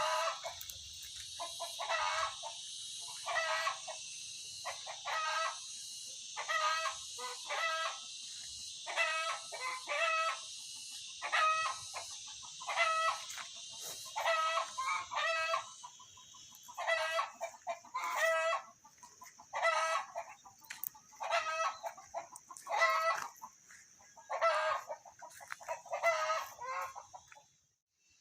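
A chicken calling over and over, short pitched calls coming about every second and a half, over a steady high hiss.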